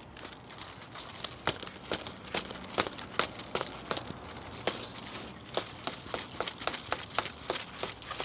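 Old sunflower plants being worked on by hand: a rapid, irregular run of sharp clicks and snaps, several a second, from dry stalks and leaves being broken and cut.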